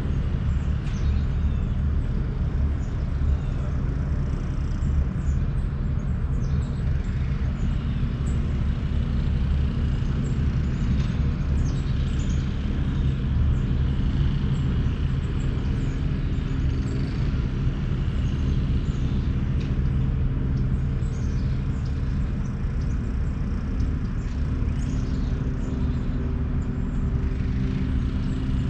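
Steady low rumble, like a motor running at a distance, with a faint hum of a few low tones. Faint, brief bird chirps come and go high above it.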